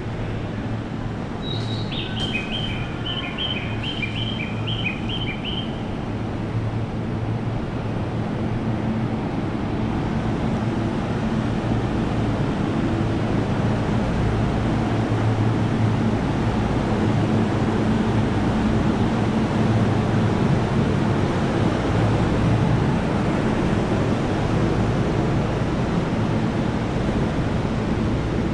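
Railway station noise: a steady rumble with a low hum that swells over the first twenty seconds and then holds. About two seconds in, a short run of high, evenly repeated chirps at two alternating pitches.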